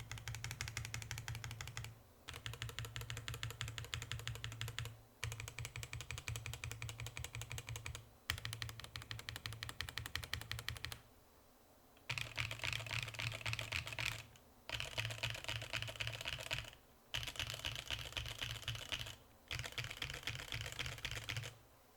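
Rapid typing on a Bias v2 custom mechanical keyboard with an aluminium plate and Haimu x Geon Black switches lubed on the bottom housing and springs: a dense clatter of keystrokes in runs of a few seconds, broken by short pauses. After about twelve seconds the clacking turns brighter and sharper.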